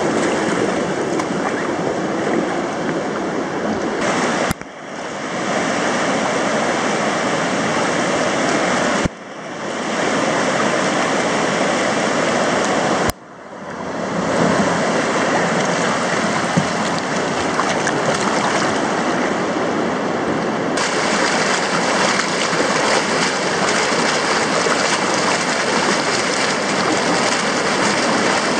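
Whitewater pouring over a river weir: a loud, steady rush of churning water. It breaks off abruptly three times, about 4.5, 9 and 13 seconds in, and swells back each time.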